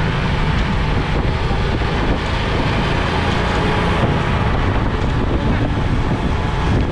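Steady wind buffeting the microphone, with a heavy low rumble underneath.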